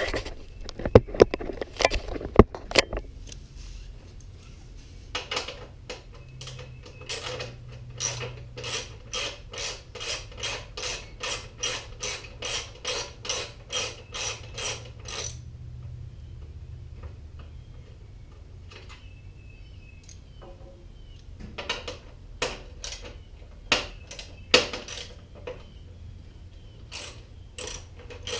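Socket ratchet wrench clicking in steady strokes, about two clicks a second, as bolts are worked loose. A few sharp metal clinks of tools come first, and the ratcheting stops for several seconds midway, then resumes.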